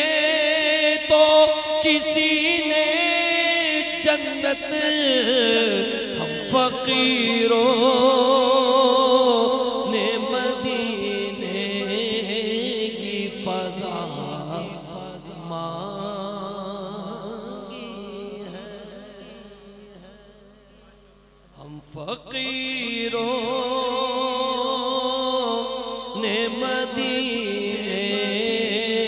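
A man's solo voice reciting a naat in long, wavering held notes, amplified through a microphone. The voice fades away about two-thirds of the way through and comes back strongly a second or so later.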